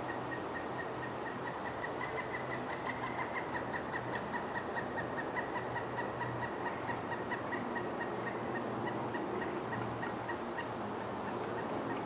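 Pileated woodpecker calling: a long, even series of short repeated notes, about five or six a second, at a steady pitch that lifts slightly a few seconds in.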